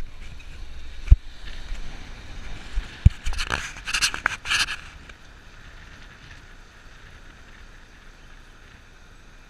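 Handling noise from a handheld GoPro action camera being moved about and held out of a car window: a few sharp knocks, then a couple of seconds of scraping and rubbing. After that, a quieter steady hum of street traffic.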